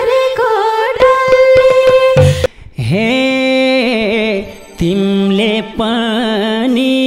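Nepali dohori folk song: a male voice sings long, wavering held notes over instrumental accompaniment, with a quick run of percussive strokes about a second in.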